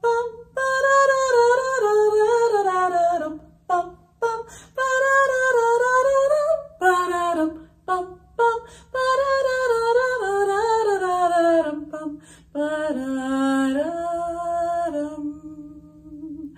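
A woman singing a tune unaccompanied on neutral syllables, in short stepwise phrases with brief breaks, a tune in Dorian mode; it ends on a soft held low note.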